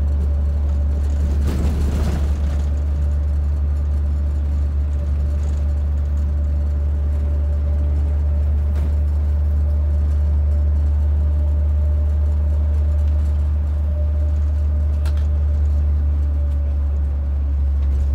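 Bus engine and road noise heard from inside the cabin while driving: a steady low drone with a faint, steady whine above it. A brief rush of noise comes about two seconds in.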